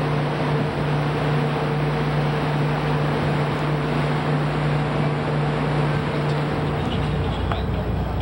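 Cruise boat's engine running with a steady drone over wind and rushing water from the wake; the drone stops about seven seconds in, leaving wind and water noise.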